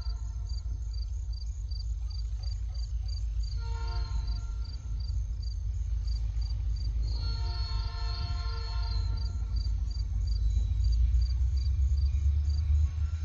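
Distant freight locomotive horn sounding twice: a short blast about four seconds in and a longer one from about seven to nine seconds, as the train approaches. Under it, a steady low rumble grows a little louder toward the end, and crickets chirp in a regular pulse.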